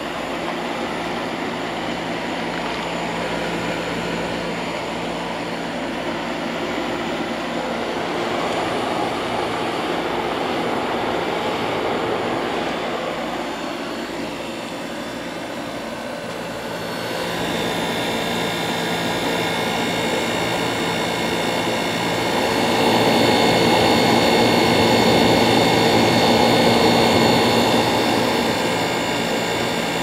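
1971 McGraw Edison Thomas Edison 6000 BTU window air conditioner running on cool: the fan blowing air over a steady compressor hum. The compressor runs smoothly and really quiet on its new mounts. The sound grows louder and brighter a little past halfway, with a faint high whine.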